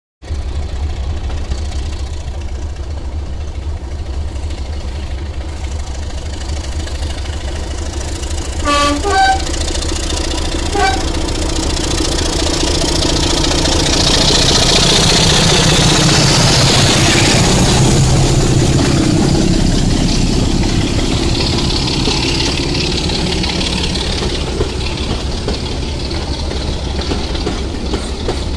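Diesel locomotive hauling a passenger train past, its engine running steadily. It sounds a two-tone horn about nine seconds in and gives a brief second toot a couple of seconds later. The train noise swells as the locomotive and coaches go by around the middle.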